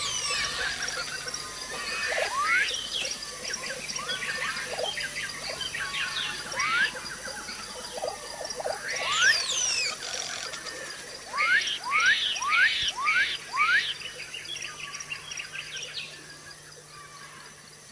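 Many birds calling and chirping, with short whistled sweeps both rising and falling, including a run of five quick rising whistles in the middle. A steady high pulsing drone runs underneath, and the calls thin out near the end.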